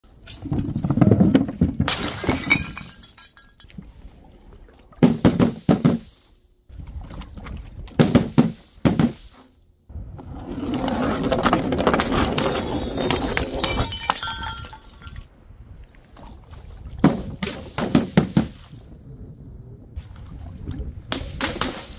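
A run of short drop-and-smash clips: sharp crashes and breaking glass in several separate bursts, and a steady rolling rumble for about four seconds just after the middle, from sand-filled glass jars rolling. Near the end, a burst of bright, crisp sound comes from liquid-filled balloons dropping.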